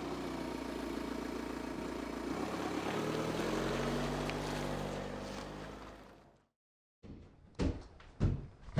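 Car engine running and pulling away, rising in pitch as it accelerates and then fading out over about six seconds. After a short silence, knocks on a door begin near the end.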